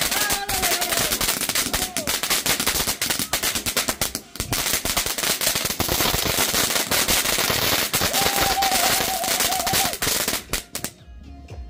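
Ground fountain firework crackling densely and continuously as it sprays sparks, then cutting off sharply near the end as it burns out.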